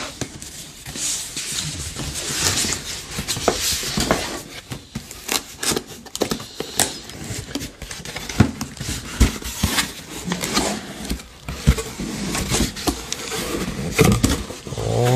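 A cardboard box being handled and opened: irregular scraping and rustling of cardboard, with many knocks and taps.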